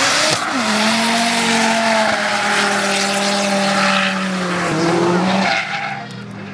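Audi five-cylinder engine held at steady revs while the car drifts, tyres squealing and skidding, with a short dip in revs near the end before the sound fades.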